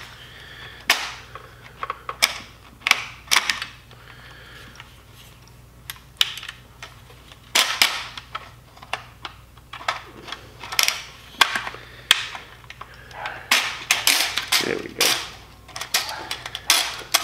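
Irregular metallic clicks and clacks, some in quick rattling clusters, as a Colt SP1 AR-15 is handled with its upper receiver opened and the buffer and buffer spring are worked out of the buffer tube by hand.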